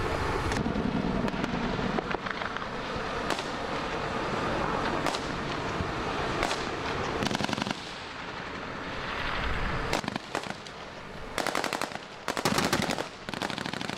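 Gunfire: scattered single shots, then rapid bursts of automatic fire about halfway through and again near the end.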